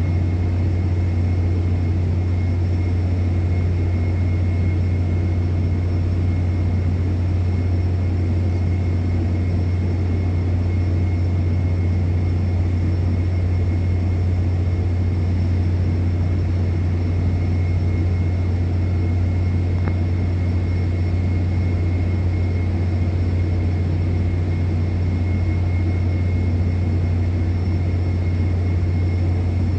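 Steady low industrial rumble from an offshore oil and gas installation, loud and unchanging, with a faint steady high whine over it.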